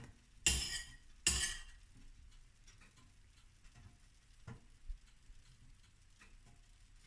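Two short hissing sizzles about half a second apart, each fading quickly, as the marinade sauce goes onto the hot grilled pork; faint ticking runs underneath.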